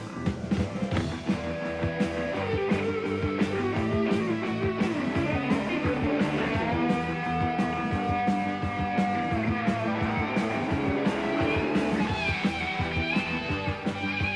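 Rock band playing an instrumental passage live: guitar and drums under a long held, bending lead line.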